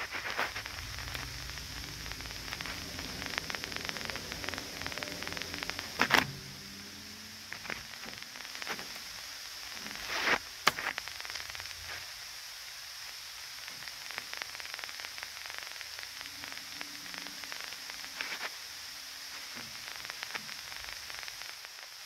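Steady hissing static from an AccuTrak VPE ultrasonic leak detector as it picks up an R-22 refrigerant leak on an indoor coil's copper tubing, with fine crackling through it. Two sharp knocks come about six and ten seconds in.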